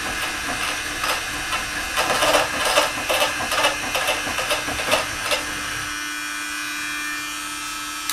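DIY CNC router's spindle running while its engraving bit cuts aluminium, a dense crackling chatter of sharp clicks. After about five and a half seconds the cutting stops and the spindle runs on with a steady hum.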